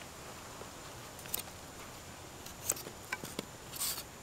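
Hand vegetable peeler scraping skin off a white radish: a few short, soft scraping strokes, the loudest near the end, over a faint background hiss.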